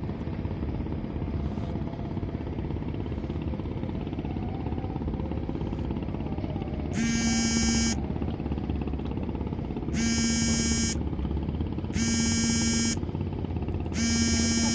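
Ship's horn sounding four buzzy blasts of about a second each, the first about halfway through and the others two to three seconds apart, over a steady low rumble.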